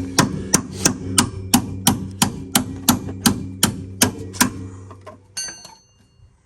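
Hammer striking metal in a steady rhythm, about three blows a second for a dozen or so strokes, over a steady low hum that fades out near the end. A brief metallic ring follows the last blows.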